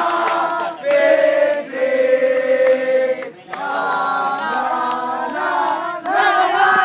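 A group of football supporters singing a chant together in long held notes, with brief breaks between lines.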